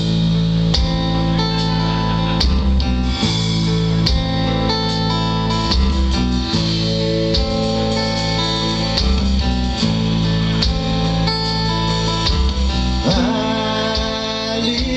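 Live rock band playing: electric and acoustic guitars over bass guitar and a drum kit.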